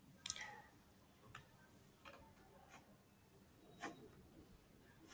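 Near silence with a few faint, short clicks about a second apart, from a computer mouse as the web page is scrolled.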